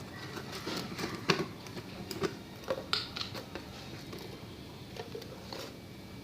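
Irregular light taps and clicks of a utensil against a container as salt is added to shampoo to make slime, bunched in the first half and thinning out after about three and a half seconds.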